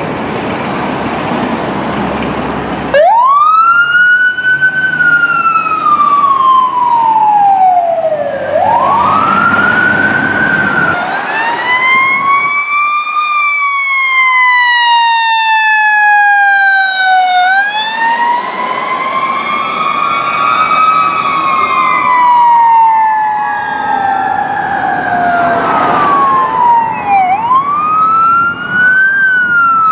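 Fire engine's diesel engine rumbling for the first few seconds, then a fire truck siren wailing: each wail rises quickly and then glides slowly down, repeated over and over, in the wind-up and coast-down pattern of a mechanical siren. Near the end the wails come faster.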